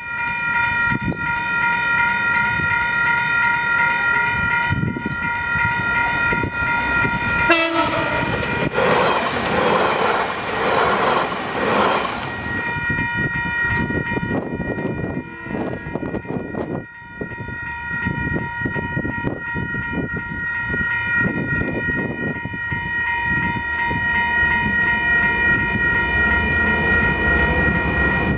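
A train horn holding a long steady chord, cut across by a loud rushing hiss about eight seconds in, then sounding on again, over the rumble of approaching diesel locomotives that grows louder near the end.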